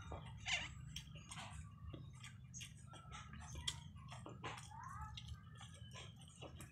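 Soft wet mouth clicks and lip smacks of someone chewing and sucking meat from a chicken adobo bone, over a faint steady low hum.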